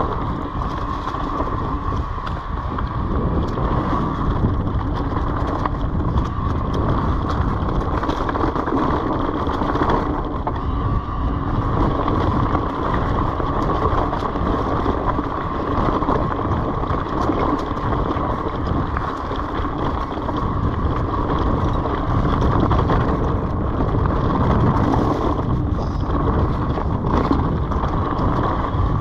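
Orbea Wild FS electric mountain bike ridden along dirt singletrack covered in dry leaves: steady tyre noise with jolts and rattles from the bike, wind on the microphone, and a steady high tone underneath.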